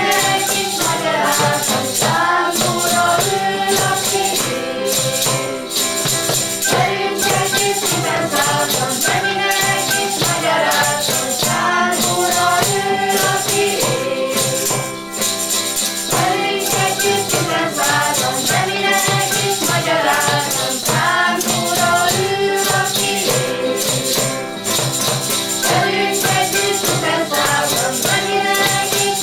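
Children's ensemble playing a song: a recorder melody in phrases over strummed acoustic guitars, with a rattle shaken in time.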